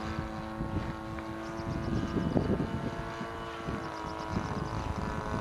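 The 26 cc two-stroke petrol engine (CRRC Pro GF26i) of a quarter-scale Yak 54 model aeroplane runs steadily at a fairly even pitch while the plane flies. Wind gusts on the microphone, strongest about two seconds in.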